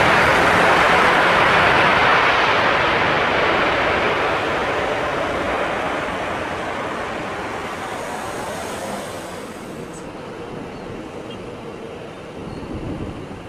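Airbus A320-214's CFM56 jet engines running loud as the airliner rolls out along the runway just after touchdown, the noise fading steadily as it moves away. About ten seconds in the sound cuts abruptly to a much quieter, steadier background.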